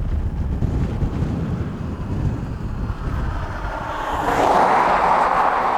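Wind buffeting the microphone with a low rumble, then rushing louder in a stronger gust about four seconds in.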